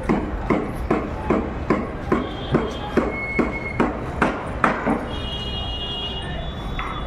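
Regular heavy knocks, about two and a half a second, which stop about five seconds in, over a steady low rumble.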